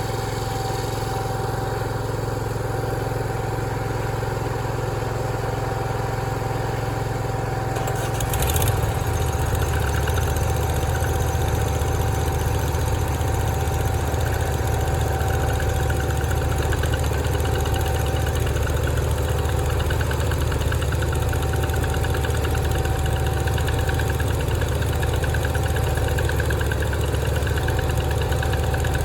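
A sawmill's engine running steadily. About eight seconds in there is a brief clatter, and from then on the engine runs louder and deeper.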